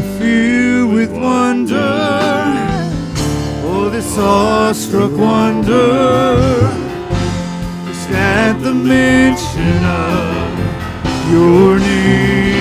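Live worship band playing: a sung lead melody with vibrato over acoustic guitar and keyboard.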